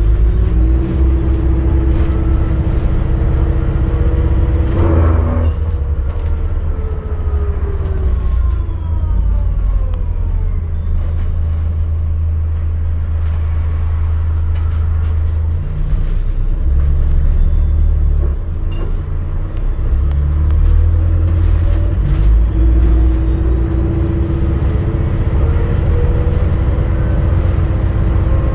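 ADL Enviro400 MMC hybrid double-decker bus on the move, heard from on board: a steady low rumble with a whine that falls as the bus slows and rises again as it pulls away. There is a short knock about five seconds in.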